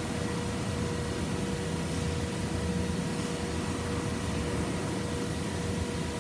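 Large horizontal boring mill running under power: a steady machine hum with a constant mid-pitched whine.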